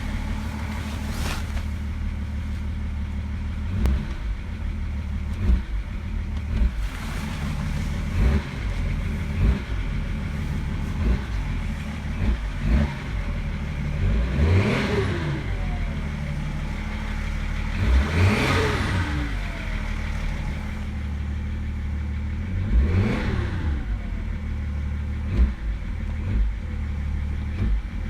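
BMW M57D30 3.0-litre straight-six turbodiesel idling and being revved: short blips, then three longer revs whose pitch rises and falls, with the turbo whistle winding up and dying away after each.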